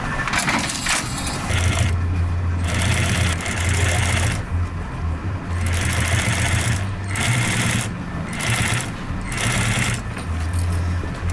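Industrial sewing machine stitching in a run of bursts of a second or two each, its motor humming low while it runs and pausing briefly between runs.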